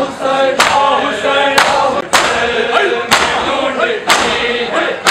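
A crowd of men beating their chests in unison (matam), one sharp slap about once a second, while a group of male voices chants a mourning lament (noha) in time with the strokes.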